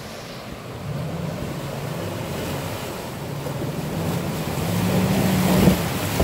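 Mitsubishi Montero SUV's engine running at low speed as it wades through a shallow creek, with its tyres pushing and splashing water. The sound grows louder as it approaches and passes close by, with the biggest splash near the end.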